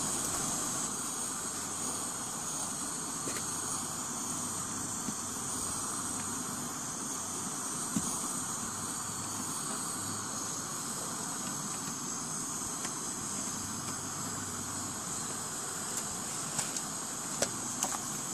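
Single-burner propane camp stove burning under a tin with a steady, even hiss. A light metal click about eight seconds in and a few faint clicks near the end come from the tin's lid being handled.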